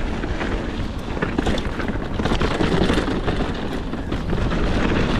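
Wind buffeting the microphone of a mountain biker's camera while riding, over the steady rumble of tyres on dirt and irregular small clicks and rattles from the bike.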